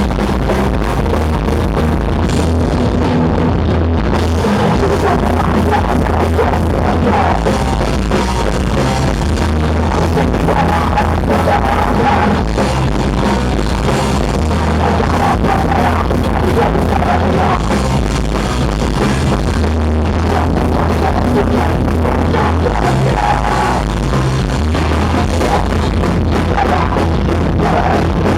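Punk rock band playing live at full volume: distorted guitars, bass and a drum kit in a dense, unbroken wall of sound.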